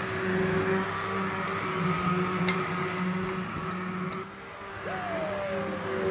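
Electric immersion (stick) blender running in a pot of pumpkin soup, a steady motor hum as it purées the soup; the hum dips briefly about four seconds in.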